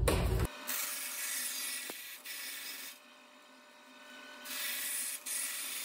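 Bandsaw cutting a round piece out of thin aluminium sheet: a steady high rasp that stops for about a second and a half in the middle, then starts again.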